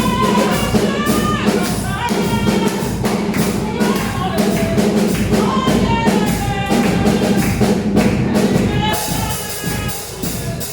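Church praise music: singing over a steady, loud beat of drums and tambourine.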